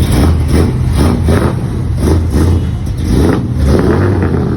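Chevrolet Bel Air's engine running with a steady low rumble, revved repeatedly in short pulses about twice a second.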